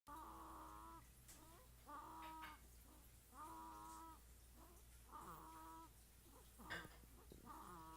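Snoring: a steady run of short snores, each with a clear high pitch, coming about once every second and a half.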